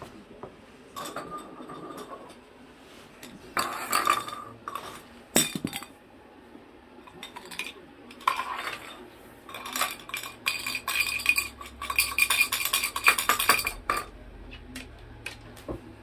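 Metal cage bars and tray clanking and rattling as a cockatoo bangs and shakes them with its feet and beak, in several bouts of clatter, the longest near the end, with a metallic ring.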